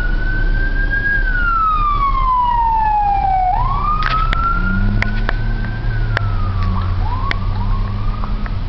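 Fire engine siren wailing, heard from inside a car: the tone rises quickly and then falls slowly, twice, with two short rises near the end. A low engine rumble runs beneath it and grows stronger about halfway through.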